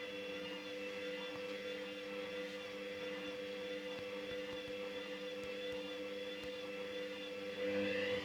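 Hoover Dynamic Rapid 30 washing machine's motor running with a steady whine during the rinse. Near the end it briefly grows louder and its pitch shifts.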